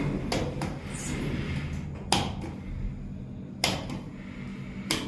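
Fuji lift's car-call buttons being pressed on a stainless-steel panel: about five separate clicks, the loudest two about two and three and a half seconds in, over a steady low hum.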